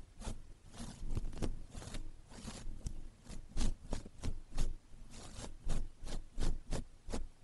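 Eyeshadow brush stroked over a mannequin's eyelid, close-miked: soft, short scratchy brushing strokes, about three a second, each with a light thud.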